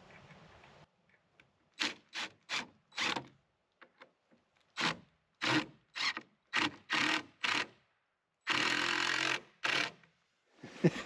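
Corded power drill driving screws into a black cherry chicken ramp in a series of short trigger bursts, then one longer run of about a second near the end.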